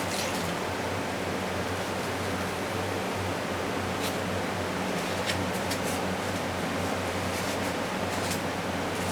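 Steady background hiss with a low hum, broken by a few faint clicks and rustles.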